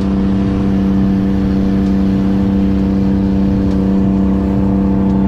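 An engine running loudly and steadily at one constant speed.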